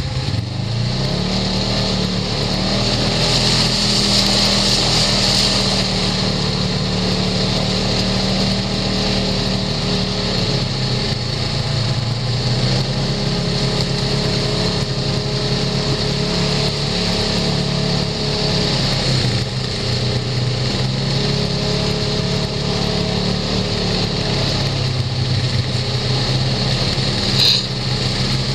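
Side-by-side UTV engine running under way on a rough dirt trail, its pitch rising and falling with the throttle, over a steady hiss. A brief sharp sound near the end.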